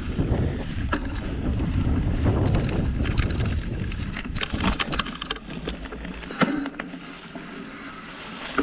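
Wind rushing over the action camera's microphone while riding a rigid Surly Krampus 29+ mountain bike on singletrack, with tyres rolling over the dirt and a few sharp clicks and rattles from the bike. The wind rush eases about five seconds in.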